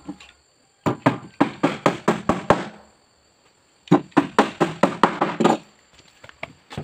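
Hammer nailing a meranti wood plank onto the frames of a boat hull: two quick runs of blows, about nine each at roughly five a second, with a pause of about a second between them.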